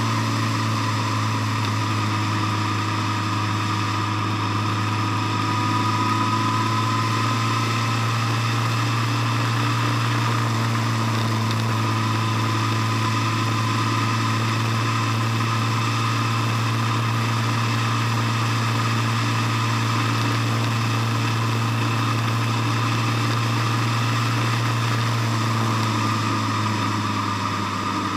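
Vehicle engine running steadily at cruising speed, a constant droning hum heard from the moving vehicle, easing off slightly near the end.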